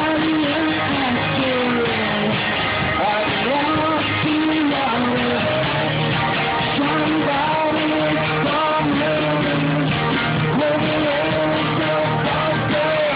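Rock song with strummed guitar and a sung vocal melody.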